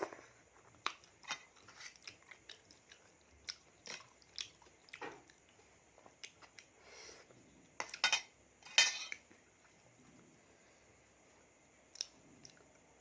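A person chewing a mouthful of spicy seafood salad close to the microphone: wet smacking and clicking bites scattered throughout, with a louder cluster about eight to nine seconds in.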